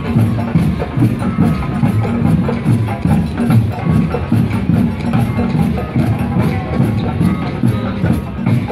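Carnival parade percussion: drums beating a fast, steady rhythm with sharp wood-block-like clicks over them.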